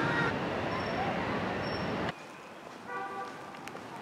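Outdoor city ambience: a steady rushing noise that drops suddenly about two seconds in to a quieter background, with a short pitched honk near three seconds.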